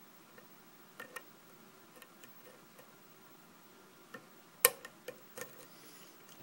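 Scattered small, sharp metallic clicks of a lock-picking hook working the pin tumblers of a Lockwood ASSA ABLOY lock under light tension, the loudest click about four and a half seconds in. The clicks are the pins being lifted and setting at the shear line, the feedback the picker reads pin by pin.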